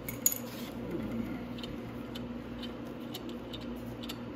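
Scattered light metallic clicks and taps from a 10mm socket ratchet loosening a motorcycle horn's mounting bolt, with one sharper click near the start, over a steady low hum.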